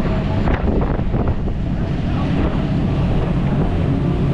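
Strong wind buffeting the microphone on the open deck of a moving boat, over a steady rush of water along the hull.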